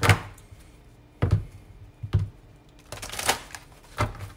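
Card decks and cards handled on a tabletop: five separate sharp taps and knocks, each with a low thud, spread over about four seconds.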